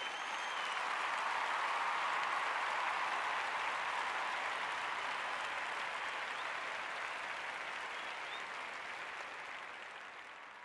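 Crowd applause sound effect, swelling up over the first couple of seconds and then slowly fading out.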